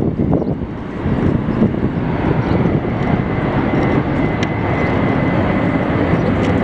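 Jet engines of a four-engined Boeing 747-400 freighter running: a steady rumble with a thin high whine coming in about two seconds in.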